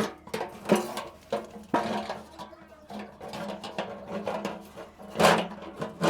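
Irregular knocks and taps on a bent satellite dish as it is worked back into shape, with one loud knock about five seconds in over a steady low hum.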